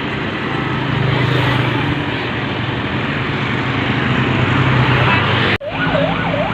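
Tour bus passing close with a loud, steady low drone. After a sudden cut near the end, a bus air horn starts a warbling, siren-like tune.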